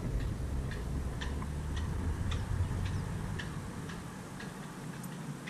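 Fishing reel ticking at an even pace, about two clicks a second, as the line is reeled in, with a low rumble of wind on the microphone.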